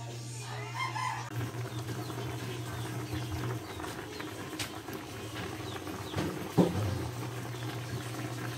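Hens clucking in short calls, heard over a steady low hum, with one sharp knock about six and a half seconds in.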